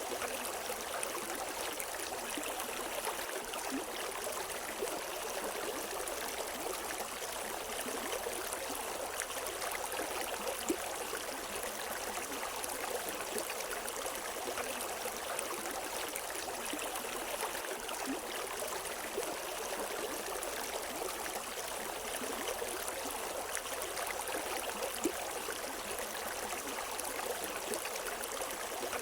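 River water flowing and babbling over rocks, a steady rushing with small splashes here and there.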